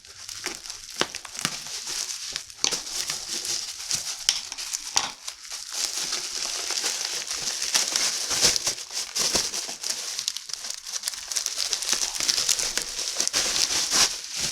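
Packaging crinkling and crackling continuously as a newly delivered planner is unwrapped by hand.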